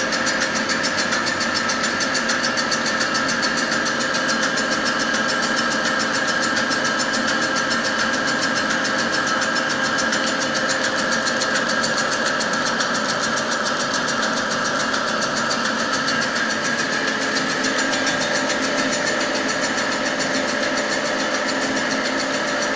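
Grinding machine running steadily, its abrasive wheel grinding the rotating welded-up bus wheel hub, a steady whine over a grinding hiss. It is taking down hard weld build-up on the wheel seat in passes of 0.15–0.2 mm.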